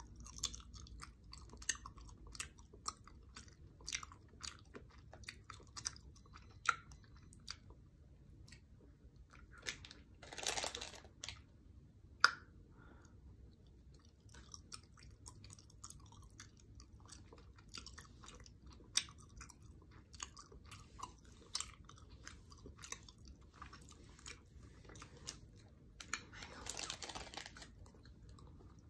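Close-up chewing of a crisp chicken tlayuda, with crunching and many wet mouth clicks. Twice, about ten seconds in and near the end, a long breath is blown out through pursed lips.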